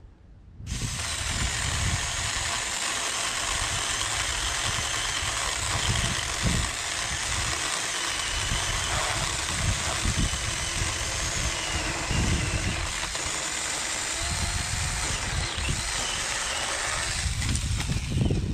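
ZEEKSAW 4-inch cordless mini chainsaw starting up under a second in and running steadily for about seventeen seconds as its chain cuts through a thick branch, then stopping just before the end.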